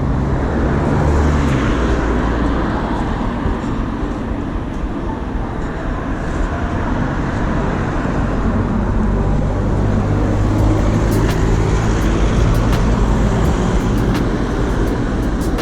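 Steady road traffic noise: cars going past with a continuous low hum of engines and tyres.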